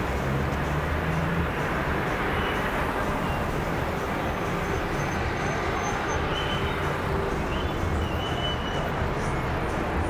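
City street traffic: cars and taxis driving slowly past in a steady stream, engines running with a low rumble under a constant hum of street noise.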